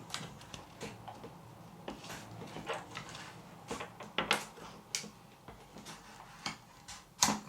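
Hard plastic drone propeller blades being cut and crunched with small hand cutters: irregular sharp clicks and snaps, the loudest a snap near the end.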